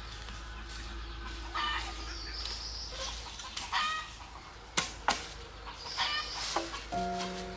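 Chickens clucking three times, with two sharp knocks about five seconds in as a blade strikes a bamboo pole. Music comes in near the end.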